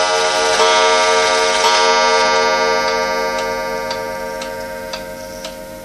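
Highlands wind-up pendulum wall clock striking the hour: two more strokes about a second apart, then the chime's ringing slowly dies away. The pendulum movement ticks steadily about twice a second, coming through plainly as the ringing fades.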